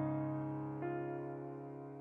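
Background piano music: held notes ringing, with a new note struck just under a second in, then slowly fading.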